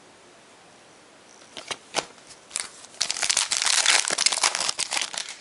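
A few light clicks and rustles, then, from a few seconds in, the dense crinkling of a foil trading-card pack wrapper being torn open.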